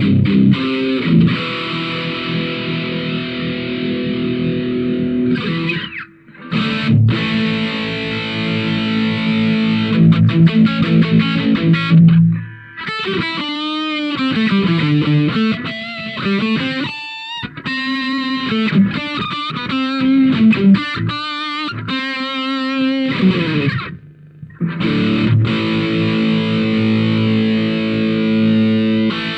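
Electric guitar played through a handmade distortion pedal, with a thick, saturated tone. It opens with held distorted chords that break off briefly once. Around the middle comes a single-note lead with string bends and wide vibrato, then the chords return near the end.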